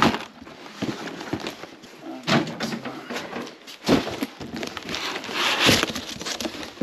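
Cardboard boxes being handled and shifted: scattered knocks and thumps of cardboard, with rustling of the plastic wrap on a carton, busiest about five to six seconds in.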